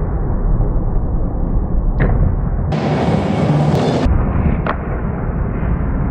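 Skateboard wheels rolling and carving on a concrete bowl, a steady low rumble, with sharp clacks about two seconds in and again near five seconds as the board meets the pool coping.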